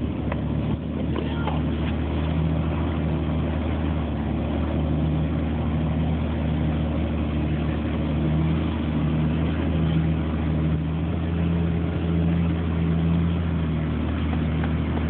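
Jeep Wrangler Unlimited (LJ) rock crawler's engine running at low, steady revs as the Jeep crawls slowly up a steep slickrock chute.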